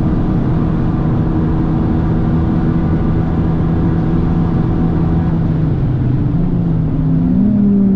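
Abarth 595 Competizione's turbocharged 1.4-litre four-cylinder heard from inside the cabin, held at high revs under full throttle with wind and road noise. About six seconds in the engine note dips, then rises sharply and settles, as the driver brakes and downshifts for the corner.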